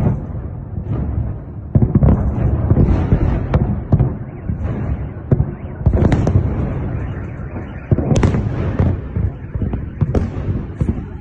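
Explosions going off one after another, sharp booms about every second with a rolling rumble in between, dozens in a short span, which the narrator takes for shells going off; it sounds like a war zone.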